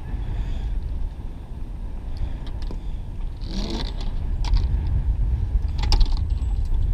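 Steady low outdoor rumble, with a brief scrape about halfway through and a couple of sharp clicks, one just after it and one near the end, as someone clambers over a fallen pine trunk lying across loaded rafts.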